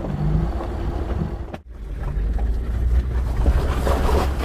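Vehicle driving on a rough dirt road, heard from inside: a steady low rumble with rattles. The sound cuts out for an instant about a second and a half in, then returns louder.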